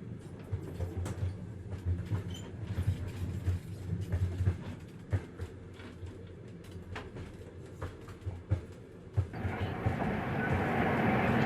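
Inside a moving train carriage: a low running rumble with irregular clicks and knocks from the wheels and car body. About nine seconds in, a louder rushing noise rises and holds.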